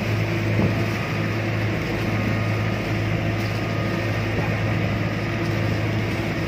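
Outrigger boat's (bangka's) engine running at a steady drone while the boat is under way, over a steady rush of water.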